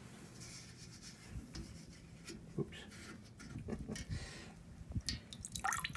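Faint handling sounds at a stainless steel brew kettle: soft rubbing and a few light taps as a hand works at the rim where the grain bag is clipped, a little busier near the end.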